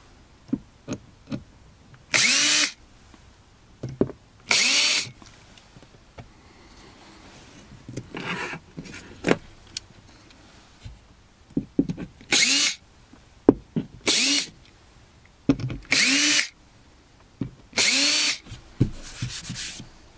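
Cordless drill-driver run in about six short bursts a few seconds apart, each spinning up quickly and stopping after about half a second, with small clicks and knocks in between.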